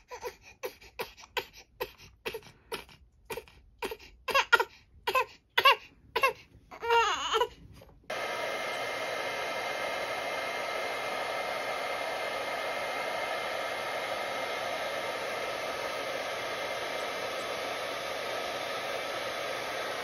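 A one-month-old baby crying in short, repeated wails. About 8 seconds in, a hair dryer switches on abruptly and runs steadily with a faint whine, and the crying stops. The dryer's steady noise, which the parents liken to sounds heard in the womb, calms the baby.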